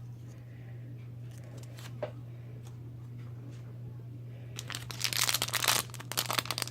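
A small plastic blind bag being torn open and crinkled, starting about two-thirds of the way in; before that only a faint steady low hum.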